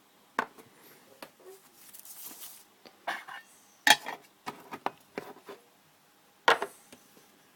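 Metal Zippo lighters and their packaging being handled: scattered sharp clicks and clinks, the loudest about four seconds in, with a brief rustle about two seconds in.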